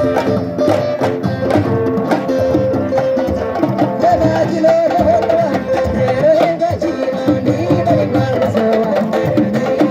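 Music with hand drums beating steadily under a wavering melodic line.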